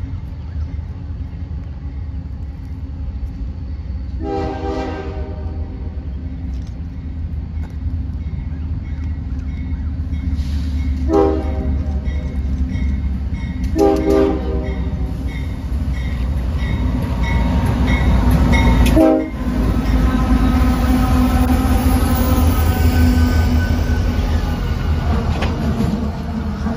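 CSX freight train's diesel locomotives approaching and passing, their engine rumble building steadily and growing loud as they pass close from about 16 s on. The multi-chime horn sounds four times: a long blast about 4 seconds in, two shorter ones around 11 and 14 seconds, and a brief one near 19 seconds. A bell rings steadily underneath.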